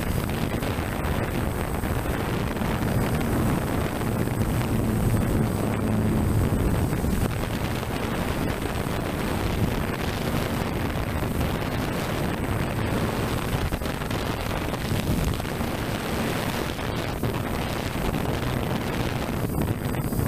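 Steady wind noise on the microphone of a DJI F550 hexacopter drone in flight, with a low, wavering hum from its motors and propellers underneath.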